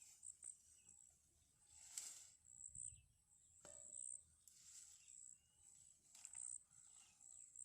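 Faint insects chirring in one steady high-pitched tone that swells in short pulses now and then, with scattered soft ticks and rustles.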